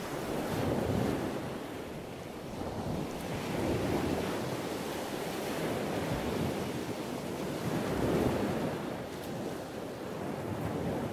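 Ocean surf: waves washing in, the rushing noise swelling and easing every few seconds.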